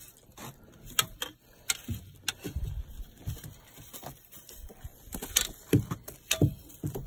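Scattered clinks and knocks of a metal-handled landing net and other gear being handled in a boat, with a few duller thumps in between.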